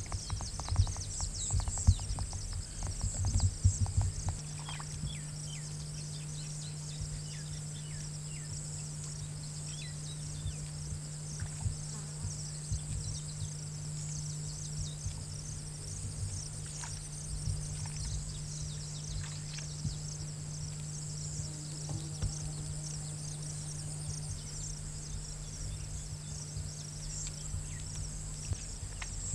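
Insects chirping in a dense, high, pulsing chorus over a constant low hum, with a few dull thumps in the first few seconds.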